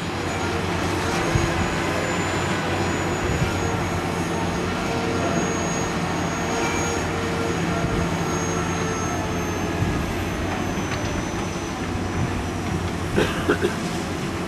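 Engine of a tracked auger drilling rig running steadily, with a faint high whine slowly falling in pitch and a few knocks near the end.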